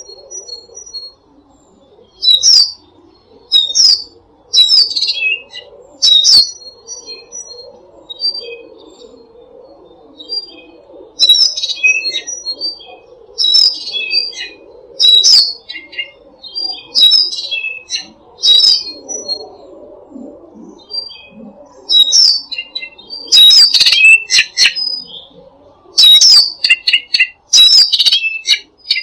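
Songbirds singing short, loud, high-pitched phrases every second or two, over a steady low background hum.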